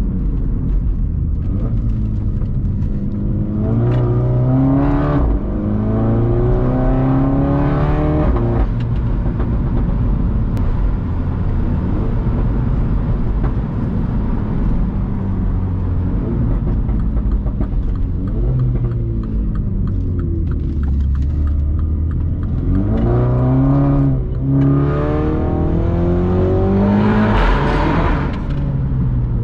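Straight-piped AC Schnitzer exhaust on a tuned Mini John Cooper Works F56's turbocharged four-cylinder, accelerating hard twice through the gears. Each time the note rises, breaks at an upshift and rises again, with steadier cruising in between. It drops off sharply near the end.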